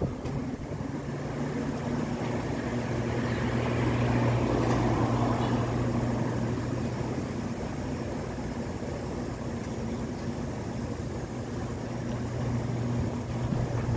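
Steady low mechanical hum and rumble that swells a few seconds in and then eases off.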